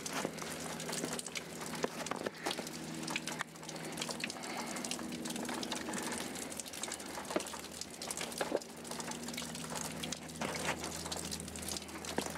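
Blood trickling and dripping into a plastic bucket from a Cornish Cross chicken bleeding out head-down in a killing cone, with scattered light clicks and rustles.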